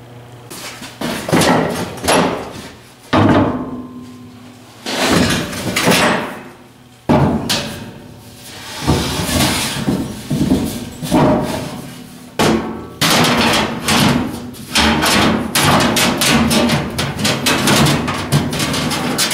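Background music, with metal clanks and knocks from steel being worked and fitted.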